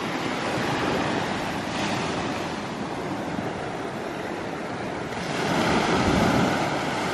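Surf washing onto a beach in a steady rush, with a wave building louder about five seconds in.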